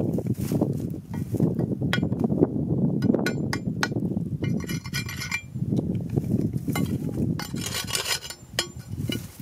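Repeated sharp clinks and scrapes of a thin metal digging tool striking and scraping stones and gravelly soil, over a steady low rumble.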